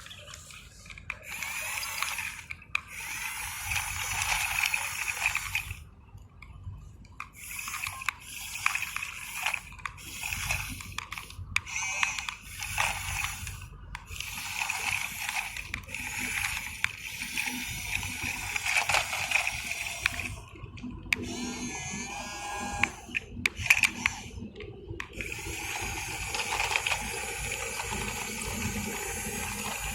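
Small electric motor whine of a remote-control model excavator, starting and stopping repeatedly in spurts of one to several seconds as it works, then running unbroken near the end.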